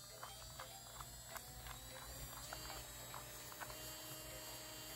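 Cordless nail drill (e-file) running as a faint steady motor whine that rises slightly in pitch as it is turned up to speed, with light scattered clicks.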